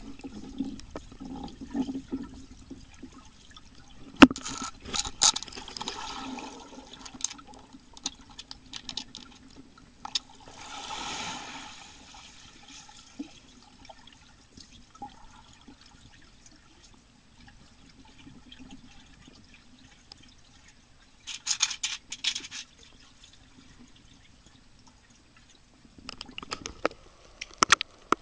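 Swimming-pool water heard through a camera's underwater case: muffled bubbling and splashing in bursts, several times, over a low steady hum.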